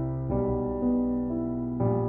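Background piano music: slow, sustained chords, with a new chord struck about a third of a second in and another near the end.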